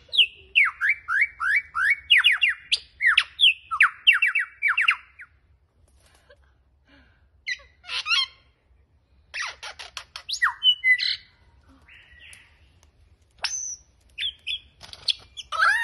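Male superb lyrebird singing in display: a fast run of falling whistled notes, about two a second, for some five seconds. After a pause come scattered bursts of varied mimicked calls and a short rising whistle.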